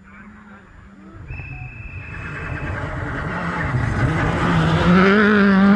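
Rally car approaching at speed on a loose gravel stage, its engine growing steadily louder until it is close by near the end, with the pitch wavering under throttle.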